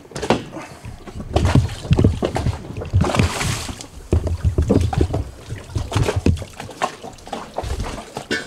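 Irregular knocks and low thumps as propane tanks are handled and set down in an inflatable dinghy, with water sloshing and splashing around the boat. A short rush of splashing comes about three seconds in.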